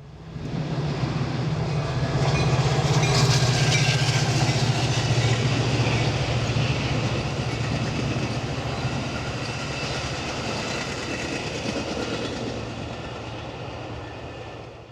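Metra commuter train passing at speed. A steady low engine hum runs under the wheel-and-rail noise; the sound is loudest a few seconds in, then fades as the cars go by and drops away near the end.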